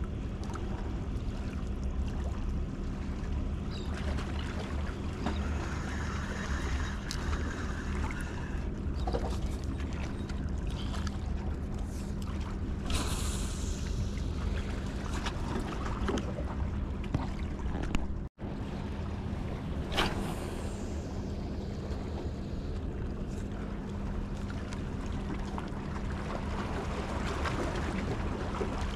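Steady waterside ambience: a low rumble with a constant low hum, water and wind noise, and a few brief handling sounds from a fishing rod and spinning reel around the middle.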